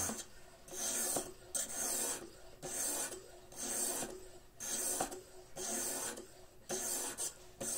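A water-soaked whetstone on the guide rod of a fixed-angle knife sharpener is pushed back and forth along a kitchen knife's blade. It makes a regular rasping stroke about once a second, eight or nine strokes in all, as the edge is touched up.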